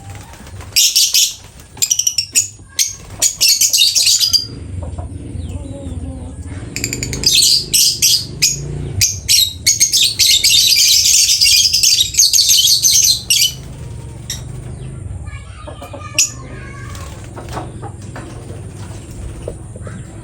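Lovebird calling in loud, shrill bursts of chatter, the longest lasting several seconds in the middle, with short clicks and taps between them.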